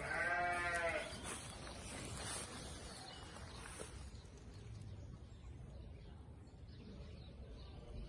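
A single bleat from a farm animal, about a second long, right at the start, with a full, slightly arching pitch.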